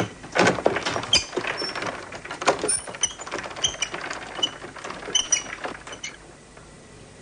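Mobile archive shelving being rolled along its tracks: a rattling run of mechanical clicks, knocks and short metallic clinks that stops about six seconds in.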